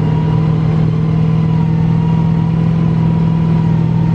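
A 4WD's engine running at steady, unchanging revs, with a thin steady whine riding above it.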